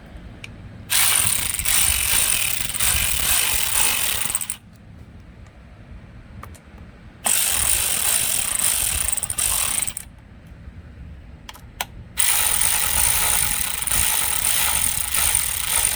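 Ratchet wrench clicking in three runs of about three seconds each, with short pauses between, as the engine case bolts are run down little by little to draw the case halves together without fully tightening them.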